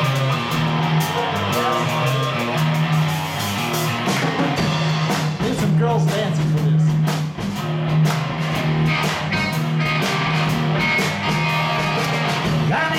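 Live band playing the instrumental opening of a country-rock song: electric guitars over a steady bass guitar line and a drum kit beat.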